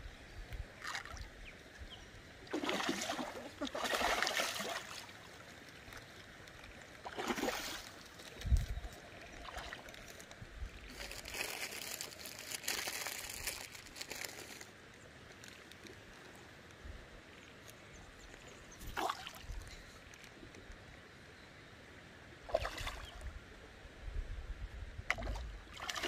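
Large farmed fish, salmon and rainbow trout, splashing and sloshing at the surface of a pond as they take feed: a few separate splashes at uneven intervals. There is also one low thump about a third of the way through.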